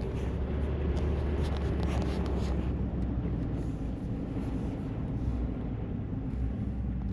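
Steady low rumble of a pickup truck driving on a snow-covered road, heard from inside the cab: engine and tyre noise.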